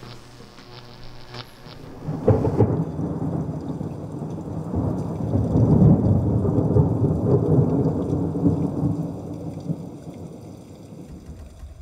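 Thunder rumbling: it breaks in suddenly about two seconds in, swells to its loudest around the middle and slowly dies away near the end.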